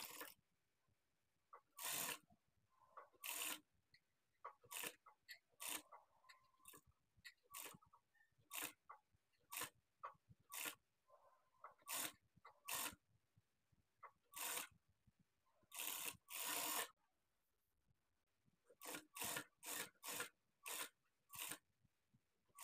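Industrial lockstitch sewing machine stitching in many short bursts, each under a second, stopping and starting over and over as a seam is guided through.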